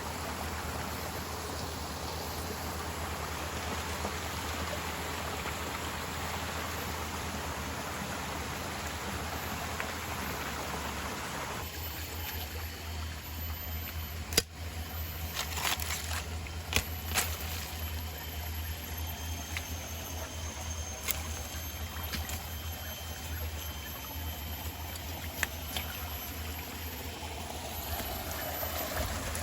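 Water of a small forest stream at a river's headwaters flowing and trickling over rocks. About twelve seconds in, the rushing becomes softer, and a few sharp knocks and clicks follow.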